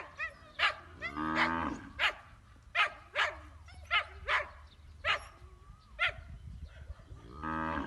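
A puppy barking in short, sharp yaps, about one or two a second, with two longer, lower drawn-out calls, one about a second in and one near the end.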